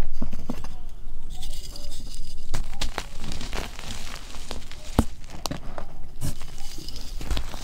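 Hands squeezing and crumbling loose gym chalk, with irregular soft crunches and crackles over a light hiss of sifting powder.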